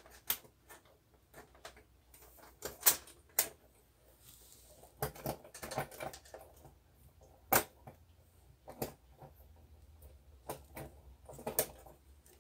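Irregular sharp clicks and knocks, with a short clatter in the middle, from a homemade LED grow-light fixture being handled and hung up.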